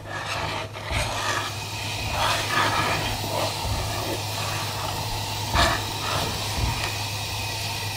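Wooden spatula stirring hot milk and sugar in a non-stick pan on a gas burner: a steady hiss with the spatula scraping and a few light knocks against the pan.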